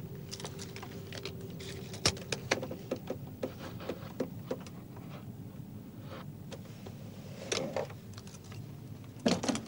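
Quiet room tone on an old soundtrack: a low steady hum under scattered sharp clicks, with two brief fuller rustling sounds, one about seven and a half seconds in and one near the end.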